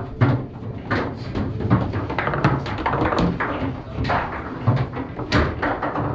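Foosball play: an irregular run of sharp knocks and clacks as the ball is struck by the rod men and bounces off the table's walls.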